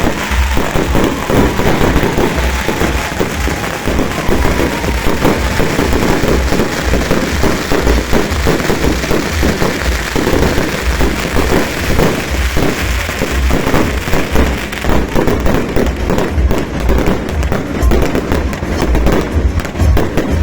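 Fireworks going off in a dense, continuous barrage of rapid bangs and crackles, many each second.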